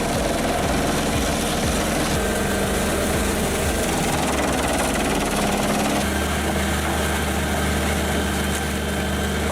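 A heavy machine's engine running steadily, a dense mechanical drone with a constant low hum that shifts slightly about two and six seconds in.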